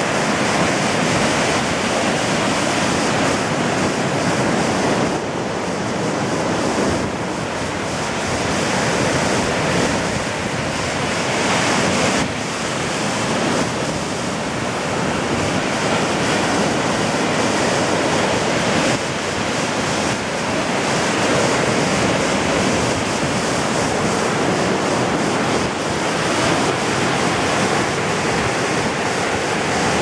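Ocean surf breaking and washing up a sandy beach, a steady rushing noise that swells and eases as waves break, with wind on the microphone.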